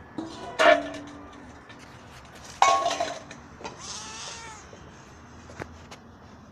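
Newborn kittens mewing in short, thin, arching cries, with a couple of louder sudden rustling bumps from handling.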